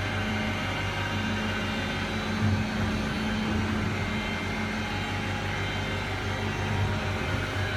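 CNC sharpening machine for carbide-tipped circular saw blades running, a steady electric hum with several steady whining tones above it.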